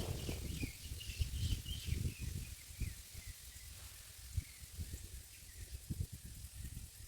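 A bird calling in a run of short, high chirps, several falling in pitch, mostly in the first three seconds, over low rumbling and scattered soft knocks.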